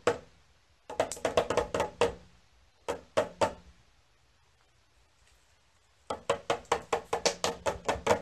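Small toy drum struck rapidly with a pair of sticks. A few hits open it, then quick runs of beats, a pause of a couple of seconds, and about two seconds before the end a steady run of about five beats a second.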